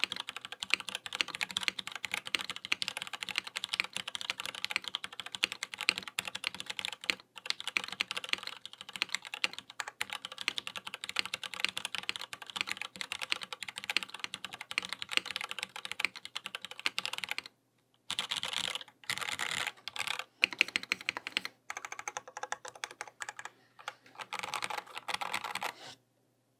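Typing on a Matrix Falcon mechanical keyboard with stock Cherry MX2A Brown tactile switches in an aluminium case, fitted with KeyKobo Miami Dawn keycaps: a fast, continuous run of keystrokes that breaks into short flurries in the last several seconds and then stops.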